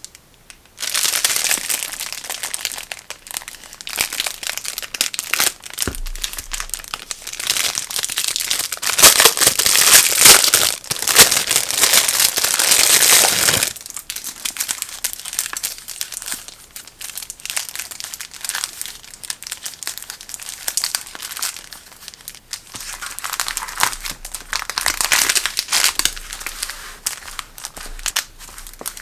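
Crinkling plastic packaging as sticky-note pads in clear plastic sleeves are unpacked and handled. It starts about a second in and is loudest for the first dozen seconds, then drops abruptly and goes on softer, with another louder stretch near the end.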